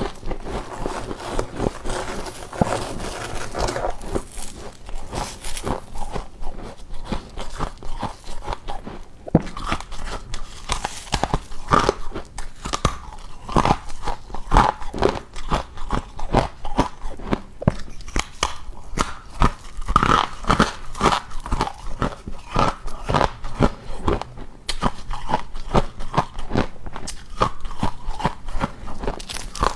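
A person biting and chewing deep-freezer ice, with dense, irregular crunching throughout.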